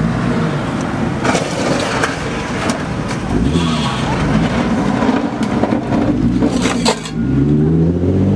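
Lowered sedan's engine revving up and down as the car eases over a kerb, with a few sharp scrapes and knocks of its underside on the concrete; the engine climbs in pitch near the end as the car pulls away.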